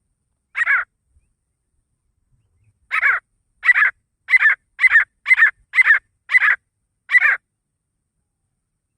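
Grey francolin (desi teetar) calling: a single harsh call, then after a two-second gap a run of eight quick calls about half a second apart.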